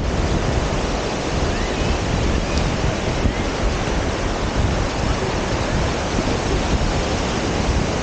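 Surf breaking and washing up the sand in a steady wash, with wind noise on the microphone.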